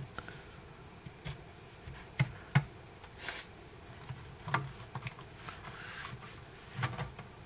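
A laptop's bottom-panel retaining clips clicking loose as the panel is pried off by hand. A few short sharp clicks, the strongest a little over two seconds in, come between softer rubbing of fingers on the case.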